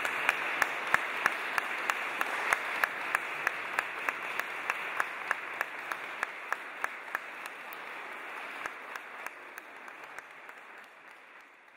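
Audience applauding, with a steady beat of sharp claps about three a second running through the general clapping. The applause fades out toward the end.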